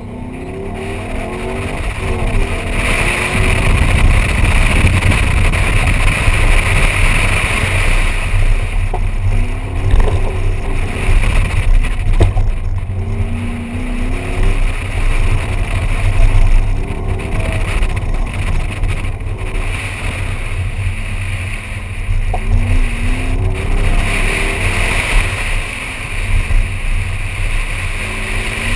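2004 Pontiac GTO's LS1 5.7-litre V8, heard from inside the cabin: it revs up hard from the launch, then rises and falls in pitch again and again as the driver accelerates and lifts through an autocross course. A steady rushing noise runs underneath.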